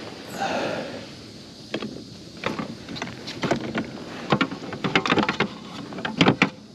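Sharp knocks and rattles on a kayak, in quick clusters, as a freshly landed bass is handled aboard, with a brief rustle near the start.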